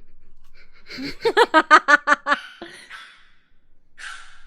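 A person laughing: a quick run of about eight short "ha" pulses about a second in, followed by a breath near the end.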